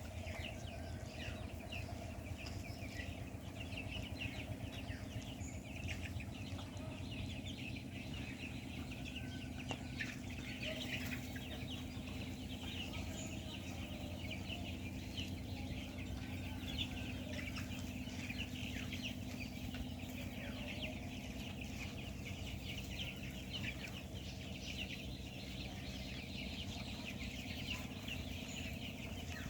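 A flock of 20-day-old Kuroiler chicks peeping and chirping continuously, many short high calls overlapping, over a steady low hum.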